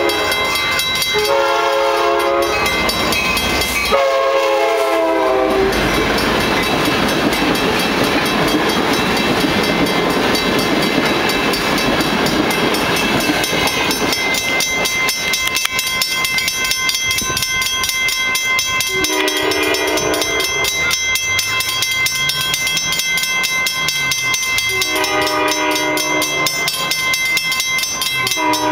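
Amtrak passenger train's multi-chime air horn sounding a series of long blasts. The train runs past in a loud rush of wheel and rail noise, and the horn blasts again later. A steady ringing of crossing bells runs underneath.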